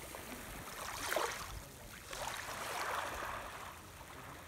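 Beach ambience: sea waves washing on the shore, swelling about a second in and again between two and three seconds.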